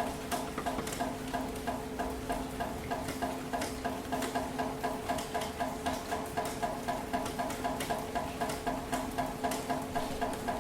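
Steady city rain, with drops splashing irregularly over a constant hiss. Underneath runs a steady low hum and a fast, regular pulsing at about three beats a second. No thunder is heard.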